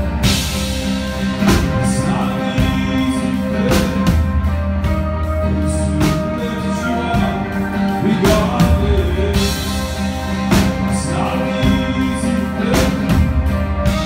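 Live band playing a song: strummed acoustic guitar over a steady bass, with drum hits about once a second and a man singing.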